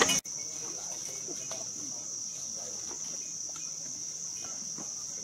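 Steady high-pitched drone of insects, unbroken throughout, with faint scattered low sounds beneath it.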